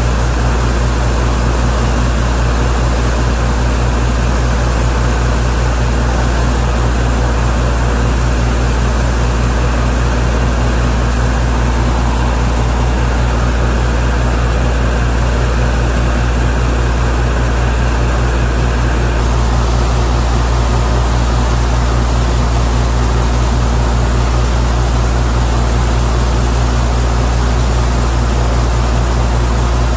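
Loud steady rush of compressed air blasting mud and water up out of a borewell during air-flush cleaning, over the low steady drone of the bore compressor running. The hiss of the blast grows a little brighter about two-thirds of the way through.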